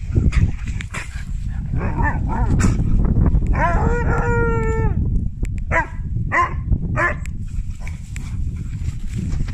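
Siberian husky puppy "woo-woo"-ing to invite play. A couple of short wavering calls about two seconds in are followed by one long, held "woo" lasting over a second, then three short "woo" calls about half a second apart, over a low rumbling noise.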